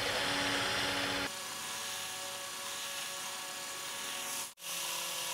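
Cordless drill running steadily. About a second in the sound drops to a quieter, lighter run, and it cuts out for a moment near the end.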